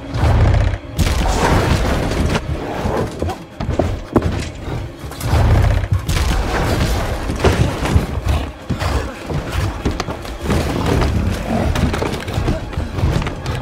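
Repeated heavy booms, thuds and shattering crashes, with music underneath.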